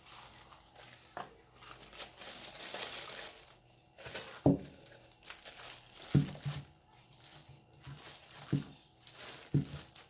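Plastic wrapping crinkling and rustling as it is pulled off a personal blender's motor base and cord, with four dull knocks in the second half.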